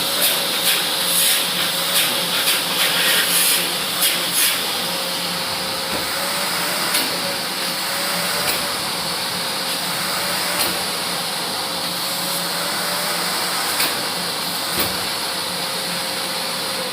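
AmazonBasics 21-litre 1400 W vacuum cleaner running steadily, a loud rushing hiss over a steady motor whine. Sharp ticks come often in the first few seconds and now and then after.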